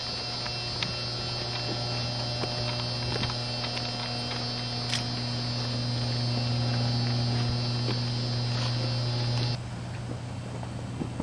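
Steady electrical hum from substation transformers: a low, even drone with a fainter tone an octave above and a high whine over it. The drone cuts off suddenly about nine and a half seconds in, leaving quieter outdoor noise with a few light clicks.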